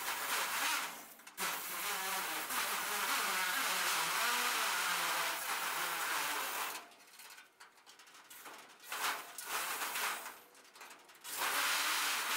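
Handheld power tool cutting through sheet steel along a taped line, its motor pitch wavering with the load. It runs steadily with a brief stop about a second in, cuts out for a couple of seconds past the middle, comes back in short bursts, and runs steadily again near the end.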